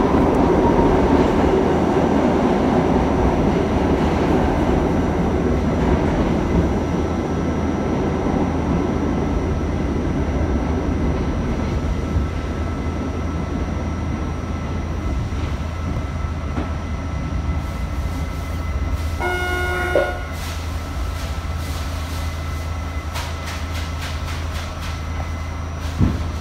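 R68A subway car heard from inside, its wheels and motors rumbling along the track and gradually quietening as the train slows into a station. About two-thirds of the way through comes a brief squeal, and a few clicks near the end.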